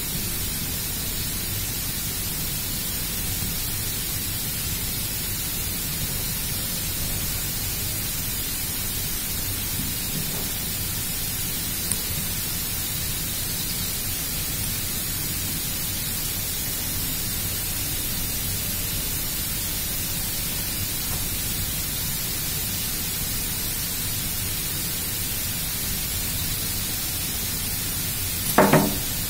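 Steady hiss of background noise with no distinct source, a faint click about twelve seconds in, and a short knock near the end, the loudest sound here.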